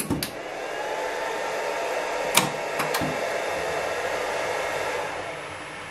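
A CNC machine's Z-axis servo motor running, a steady whir that eases down about five seconds in. A few sharp clicks of panel switches come partway through.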